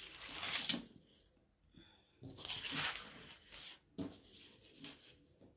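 Sticky Chalk Couture screen-print transfer being peeled up and repositioned, making a tearing, crackling peel twice, the second about two seconds in, then a short tap at about four seconds.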